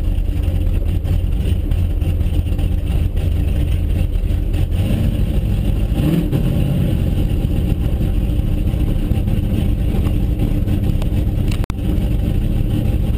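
Car engine running at low speed, heard from inside the cabin as a steady low hum, with a short rise in revs about six seconds in. The sound cuts out for an instant near the end.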